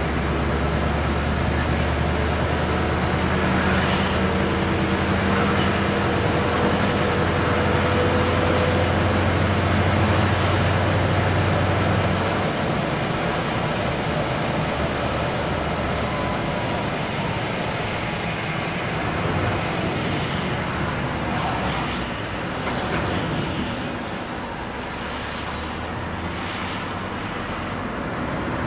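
Interior running noise of a vehicle driving on a wet road: steady tyre and road noise with a low engine drone that drops away about twelve seconds in, and the overall noise easing a little near the end.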